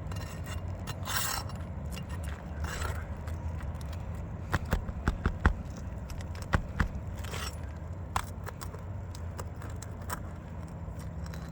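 Steel pry bar scraping under asphalt shingles and clicking against metal as it works a roofing nail loose, with a cluster of sharp taps in the middle. The shingles are brittle with age, so the nail heads pull through them.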